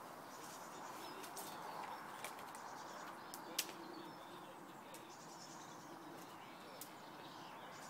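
Chickens foraging on a pile of dry fallen leaves, heard faintly: soft rustling with a few sharp clicks, the loudest about three and a half seconds in.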